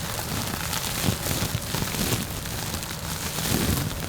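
Fingers rubbing and touching a microphone's wind cover right in front of the mic, making a continuous rustling noise with small uneven surges. This is the raw, unfiltered sound used to fake an airplane-flight rumble.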